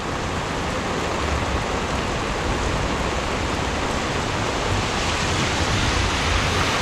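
Heavy rain pouring down in a steady, even hiss, with a low rumble underneath.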